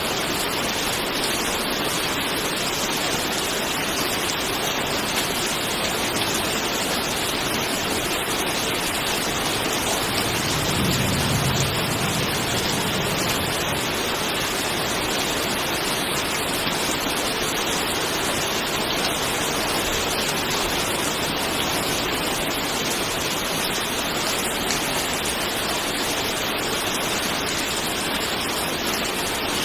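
Steady, calm rainfall, an even hiss with no letup, with a brief low rumble about ten seconds in.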